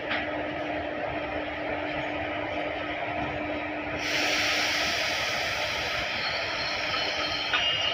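Train rolling slowly on rails, a steady rumble and hiss. A low steady hum stops about halfway as the hiss grows brighter, and a faint high wheel squeal comes in near the end.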